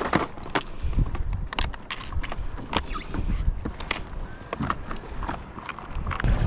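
Irregular sharp clicks and knocks, about a dozen, from gear being handled aboard a fishing kayak, over low water and wind noise.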